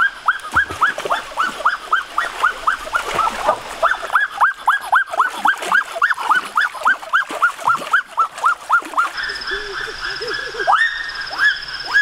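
An animal call repeated rapidly and evenly, about three short downward-sweeping calls a second. A thin high trill joins in over the last few seconds.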